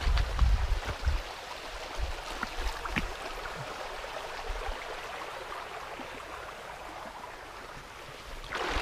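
Small shallow stream running over stones: a steady hiss of flowing water. Low rumbles from wind on the microphone come in the first second and again near the end.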